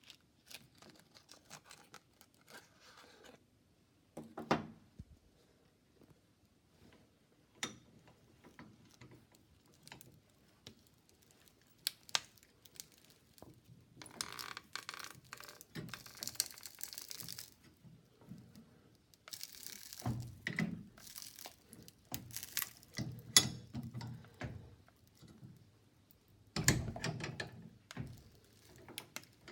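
A mobile phone being crushed and broken, its screen and casing giving sharp snaps with stretches of crackling and crunching in between.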